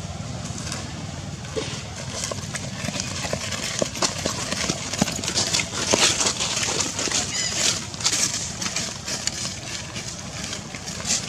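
Irregular crackling and rustling of dry leaves and twigs with many sharp clicks, heaviest in the middle, over a steady low background rumble.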